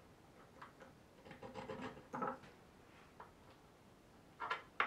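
A small file rasping briefly across a neck bolt's threads to mark where it will be cut, about a second and a half in, followed by a few light clicks and taps, the loudest two near the end.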